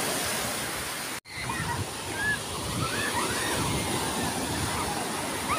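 Surf breaking and washing up a pebble beach, a steady rush of water broken by a brief silent gap about a second in. After the gap, children's high shouts and calls come through over the waves.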